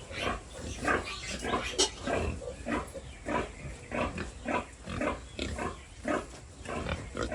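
Pigs grunting, short calls following each other about twice a second.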